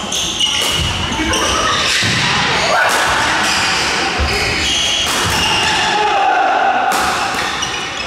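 Badminton rally: racquets strike the shuttlecock in a series of sharp hits, and players' shoes move on the wooden court floor, with voices echoing around a large sports hall.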